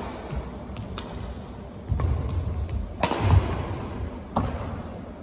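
Badminton rally: sharp cracks of rackets striking the shuttlecock every second or two, echoing in the hall, the loudest about three and four and a half seconds in. Low thuds of players' footwork landing on the court sound between the hits.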